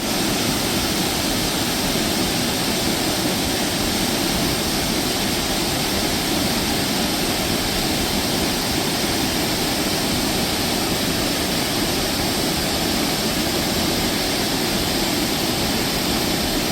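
A waterfall's steady rush of falling water, loud and even throughout, cutting in and cutting off abruptly.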